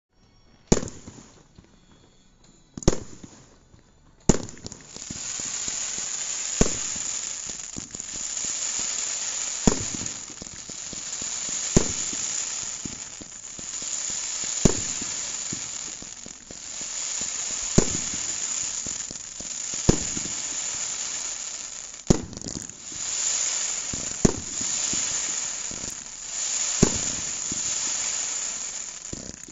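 A 95-shot firework cake with 0.8-inch tubes going off: a sharp report every two to three seconds, with a steady hiss between them from about four seconds in.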